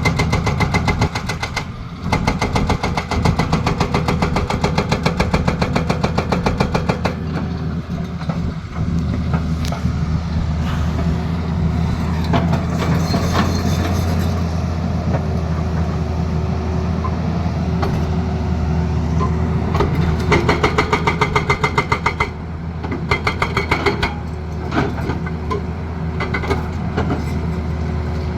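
Excavator's diesel engine running under load while its hydraulic breaker hammers in rapid, evenly spaced blows, about five a second. The hammering goes on in long runs, stops for a stretch in the middle with the engine still running, and starts again later.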